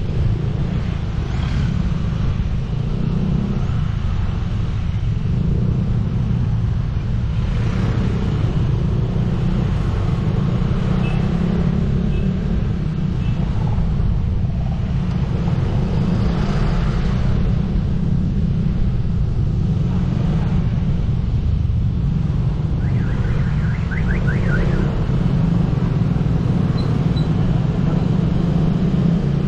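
Steady low rumble of a motorcycle on the move: engine and wind on the rider's microphone, with road traffic around. About two-thirds of the way in comes a short run of rapid high chirps.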